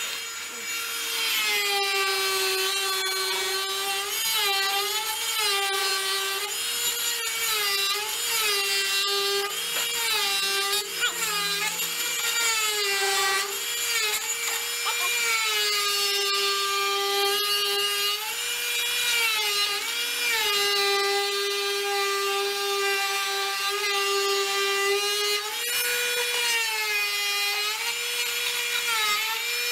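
Dremel rotary tool whining at high speed as its cutting wheel grinds into a hard round log. The pitch sags again and again as the wheel bites under load and rises as it eases off.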